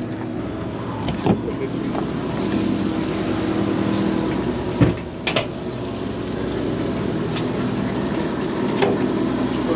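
Large fishing party boat's engine machinery running with a steady low drone, with a few sharp knocks on deck about a second in and around the middle.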